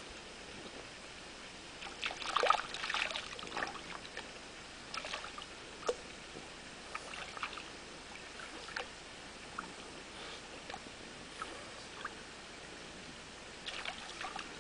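A French bulldog splashing in shallow stream water as it noses and wades after small fish: a burst of sloshing about two seconds in, then scattered single splashes and another short burst near the end, over the steady trickle of the stream.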